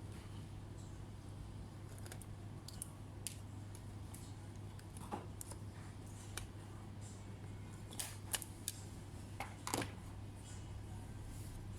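Scattered small clicks and snaps of hand tools and plastic laptop parts being handled during disassembly, several close together in the second half, over a steady low hum.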